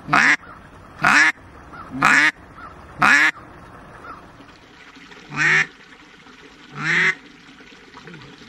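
Duck call blown by a hunter: six loud quacks, four about a second apart, then two more spaced further out.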